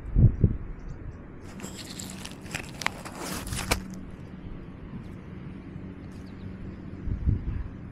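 Handling noise from a camera collar worn by a cat as it moves through grass. There are low knocks right at the start and again near the end, and a couple of seconds of rustling in between, over a steady low hum.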